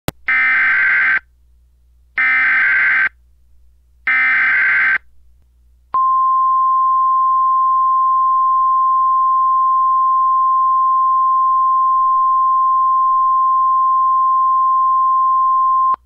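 Emergency Alert System header: three short buzzing data bursts of the SAME code, about a second apart, followed by the steady single-pitch weather-radio attention tone held for about ten seconds, signalling the start of a tornado warning.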